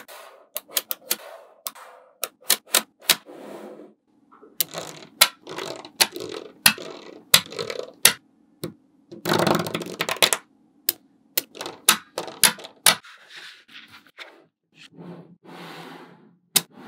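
Small magnetic balls clicking and snapping against each other as sheets of them are pressed, folded and joined by hand: many sharp separate clicks, with short rattles where whole rows of balls shift at once, the longest about halfway through.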